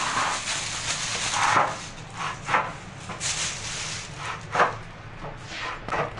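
Irregular scraping and rubbing, a string of short rasping strokes, as a white shower-enclosure profile strip is slid and worked against a concrete floor. The loudest strokes come about a second and a half in and again after four and a half seconds.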